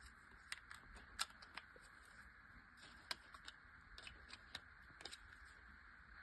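Faint, irregular clicks and taps of small plastic accessories being handled during an unboxing, over a steady low hiss. The two loudest clicks come just after a second in and about three seconds in.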